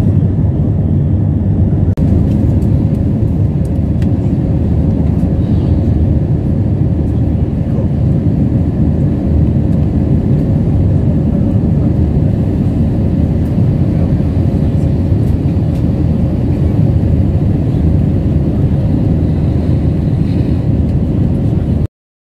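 Jet airliner cabin noise during the climb after takeoff: a steady, loud rumble of engines and airflow with a steady tone running through it. It stops abruptly just before the end.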